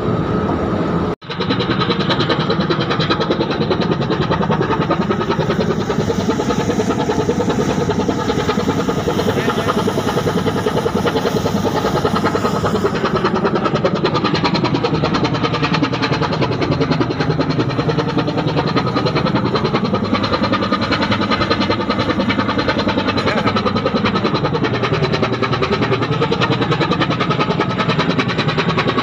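Cargo ship's diesel engine running steadily under way, a loud, dense rapid pulsing that fills the deck. It cuts out for an instant about a second in, then carries on unchanged.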